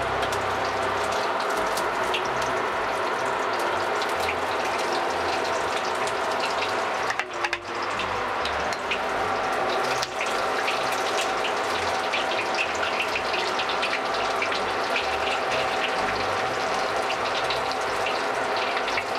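Breadcrumb-coated tiger prawns deep-frying in smoking-hot oil in a wok: a steady sizzle full of small crackling pops. It dips briefly about seven seconds in.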